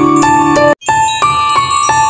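Background music: sustained bell-like keyboard notes and chords, cutting out for a split second just under a second in, then carrying on.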